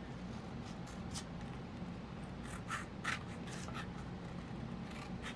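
Scissors snipping through a sheet of printed photo paper: several faint, short cuts at uneven intervals.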